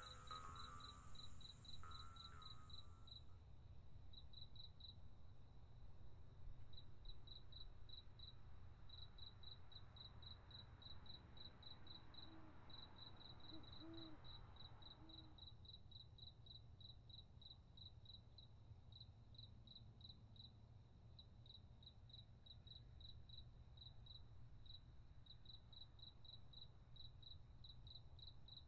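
Cricket chirping in quick, even pulses, several a second, faint over a steady low background rumble.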